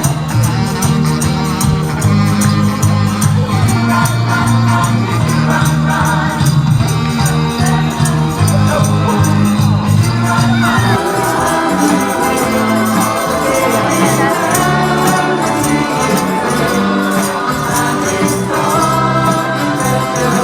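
Christmas song with singing over a bass line and fast jingling percussion, cutting in loudly at the start.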